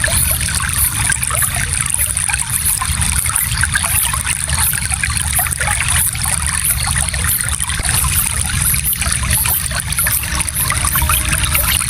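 Gentle stream flowing: a steady, unbroken trickling babble of water.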